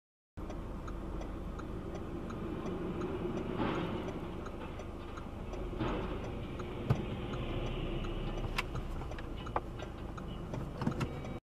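Steady vehicle and road rumble heard from inside a car, with a faint regular ticking about three times a second and a few sharp knocks in the second half, the loudest about seven seconds in.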